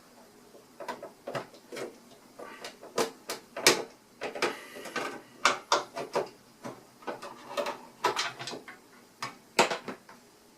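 Irregular clicks, knocks and scrapes of hard plastic as the plastic end cover is worked off a budget hobby sewing machine.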